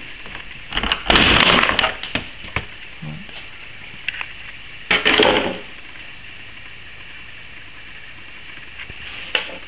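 Close handling noise: two bursts of rustling and scraping against the ATV's plastic bodywork and the camera, with a few small knocks and a single sharp click near the end. The engine is not running.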